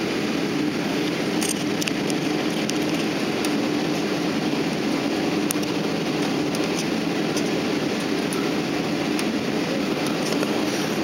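Steady rumble and hiss inside a jet airliner's cabin as it moves on the ground, with scattered light ticks and rattles.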